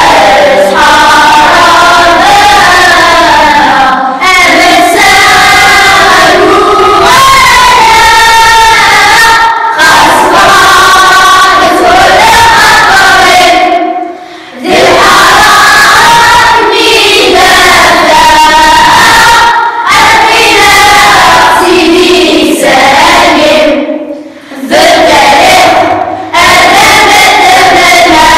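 Children's choir singing together, in sung phrases of a few seconds each, broken by short pauses.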